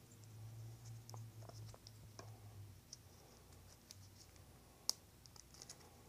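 Faint small clicks and scratches of the split plastic chuck of a Neutrik XLR connector being fitted around a cable by hand, with one sharper click about five seconds in. A faint low hum runs under the first half.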